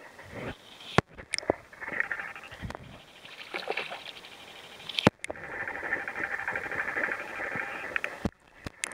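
Underwater sound picked up by a waterproof compact camera's built-in microphone: a crackling hiss broken by three sharp knocks, with a splash of something hitting the water surface about four seconds in.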